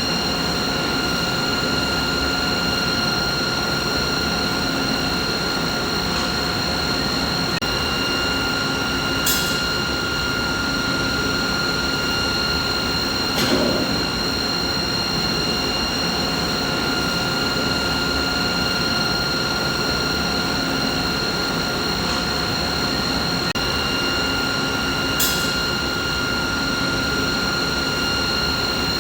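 Steady running-machinery hum: an even noise with several constant whining tones on top. Two brief sharp clicks and one short, louder thump break through. The pattern repeats about every 16 seconds as the recording loops.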